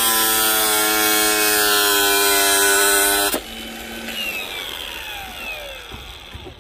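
Aerosol can of expanding polyurethane foam spraying: a loud hiss with a steady buzzing tone for about three seconds that cuts off suddenly, followed by a quieter hiss.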